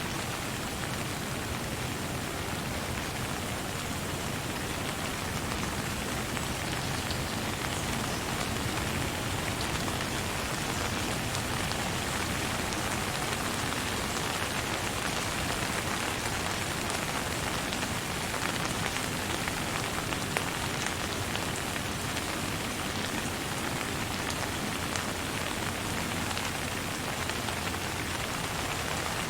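Steady rain falling, with no thunder: an even hiss of rain, with scattered single drops ticking through it.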